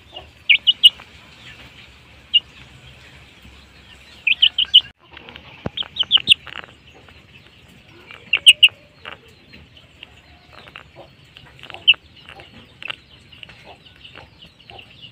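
Chickens chirping and peeping in short high calls, some alone and some in quick runs of three or four, every second or two.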